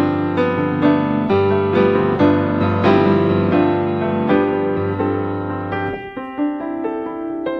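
Background piano music, notes struck roughly twice a second over sustained lower chords; the low bass notes drop out about six seconds in.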